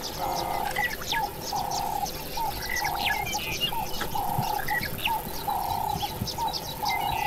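Wild birds chirping in a dense chorus of short high calls, over a short lower trill that repeats evenly about every second and a quarter.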